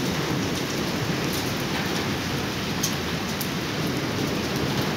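Heavy rain falling steadily on a street, an even hiss with a few faint sharp ticks of drops.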